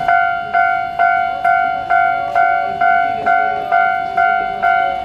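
Japanese railway level-crossing warning bell starting to ring: a loud, high, ringing tone struck about twice a second. This signals that a train is approaching the crossing.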